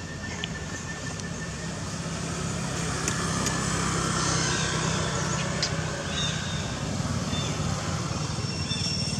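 Steady low engine rumble of a motor vehicle, getting louder about two to four seconds in, with a few short high-pitched calls near the end.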